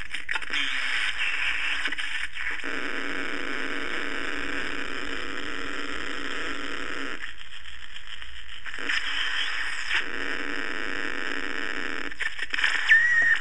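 Circuit-bent AM radio putting out a hiss of static through its speaker as its dials are turned, the noise shifting in tone as it goes. It nearly drops out about seven seconds in and comes back, and near the end breaks into crackles with a short gliding whistle.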